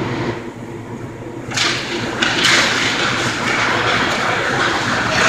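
Ice hockey skates scraping and carving the rink ice in hissing spurts as play breaks from a faceoff, growing louder about a second and a half in, over a steady low hum.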